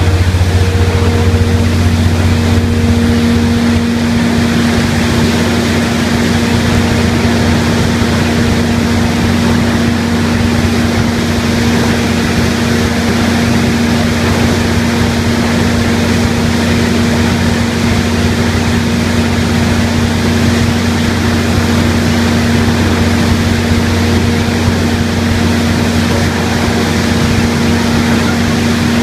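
Plastic bottle recycling line running: a loud, steady machine hum with a deep drone and a constant higher tone over a continuous mechanical noise.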